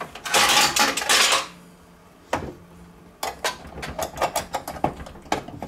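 Metal clattering and scraping, then a quick string of light metallic clicks and taps as a wire rotisserie lifting tool is hooked onto the spit of an air fryer oven.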